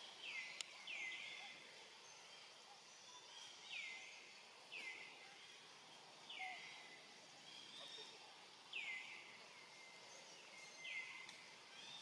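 A bird calling faintly: short whistled notes that slide down in pitch, about seven of them at uneven intervals, over a faint outdoor hiss. A single sharp click about half a second in.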